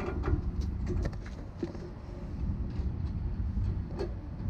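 Light metallic clicks and knocks of hand work on a semi-trailer's air brake chamber mounting, the loudest about four seconds in, over a steady low rumble.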